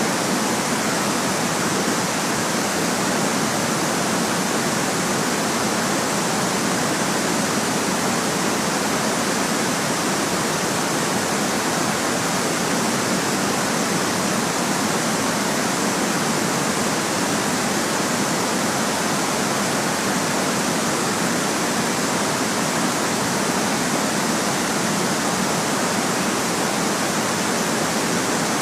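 Steady white noise: an even, unchanging hiss with no breaks, thin in the deep bass.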